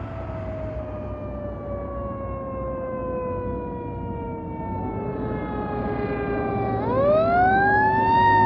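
Fire engine siren approaching on an emergency run, growing louder: a long wail falling slowly in pitch, then about seven seconds in it winds up sharply to a higher pitch and starts to fall again, over a low rumble of engine and road noise.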